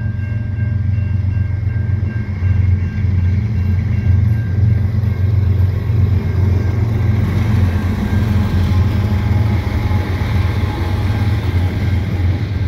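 CN freight train's diesel locomotives running past a level crossing with a steady, heavy rumble that builds about two seconds in, while the crossing bell rings. Double-stack container cars follow them.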